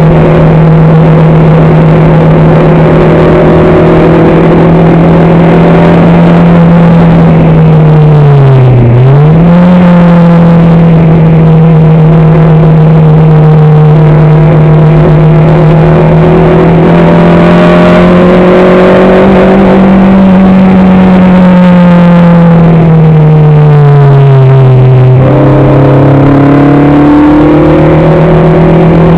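A vehicle's engine heard on board at speed, holding a mostly steady pitch. The revs dip and pick up again about nine seconds in, and fall away and climb again near the end.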